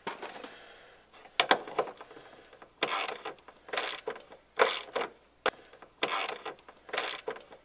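Hand ratchet wrench tightening the bolts of a parking brake lever assembly, its pawl clicking in a short burst on each back-stroke, about one stroke a second.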